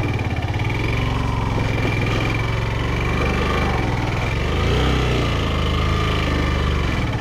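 Motorcycle engine running at low revs, with the pitch dipping and picking up again about four to five seconds in as the bike works over a rough dirt track.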